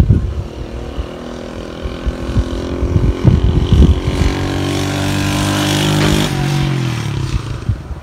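A motor vehicle's engine passing by. It grows louder and slightly higher in pitch for about three seconds, then drops in pitch and fades away near the end.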